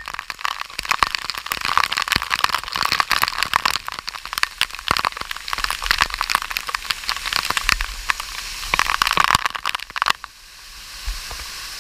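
Waterfall splashing, a dense rush of falling water full of sharp spatters; about ten seconds in it drops to a quieter, steadier hiss.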